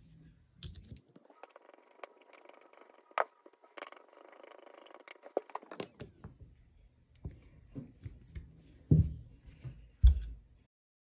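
Hand assembly of an aluminium ATV carburetor: a screwdriver turning small cover screws, with scratchy scraping and sharp clicks of metal parts. Then several dull knocks as the carburetor body is handled on the bench, the loudest two near the end, before the sound cuts off.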